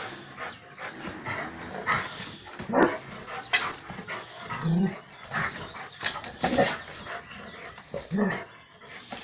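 Rottweiler barking in short, irregular bursts.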